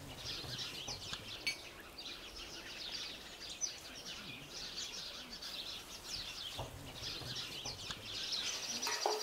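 Small birds chirping and singing continuously, many short overlapping calls, with a faint click about a second and a half in.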